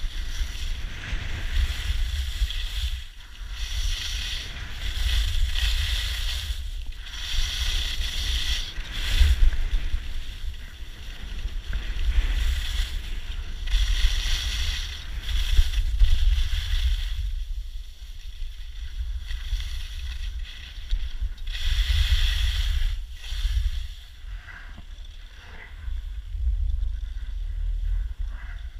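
Wind rumbling on the camera microphone while skiing downhill, with the skis hissing and scraping over the snow in surges that rise and fall with the turns. The scraping eases off for a few seconds past the middle.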